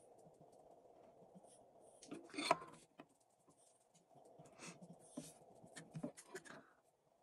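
Small paintbrush scratching and dabbing paint onto a carved wooden duck lure, with light handling clicks and one louder scrape about two and a half seconds in, over a steady low hum.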